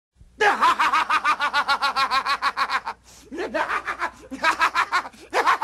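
Jim 'The Anvil' Neidhart's signature high cackling laugh: one long run of rapid 'ha-ha-ha' pulses, then a few shorter bursts of cackling.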